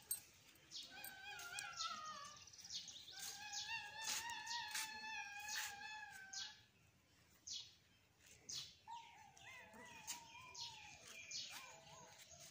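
Dog whining: about four long, high-pitched wavering whines, the longest lasting some three seconds, with short sharp clicks in between.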